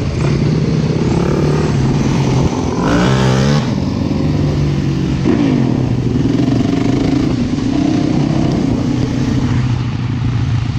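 Dirt bike and sport quad engines running as they ride, with a quick rise and fall in revs about three seconds in and another just after five seconds.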